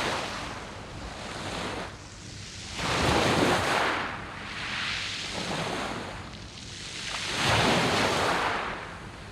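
Sea waves washing up and drawing back over a beach of round pebbles, in surges that swell and fade every few seconds, the two largest about three seconds in and near the end.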